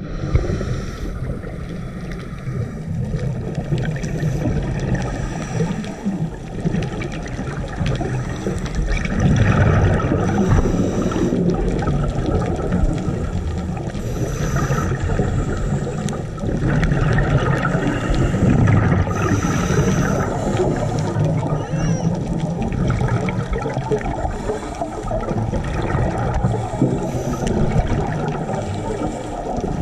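Scuba diver breathing through a regulator underwater: a steady bubbling rumble, with louder gurgling bursts of exhaled bubbles every few seconds.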